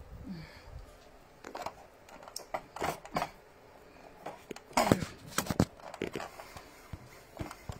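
Handling noise from a handheld phone: irregular knocks, clicks and rustling as it is moved about and rubbed against clothing, the loudest knocks about five seconds in.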